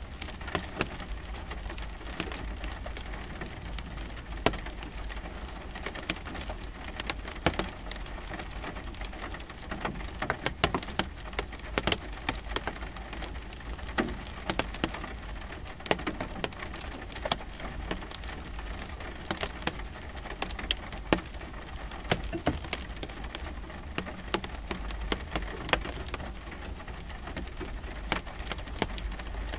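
Light rain dripping onto a car windshield: single drops tap the glass at irregular moments, some louder than others, with a low steady rumble underneath.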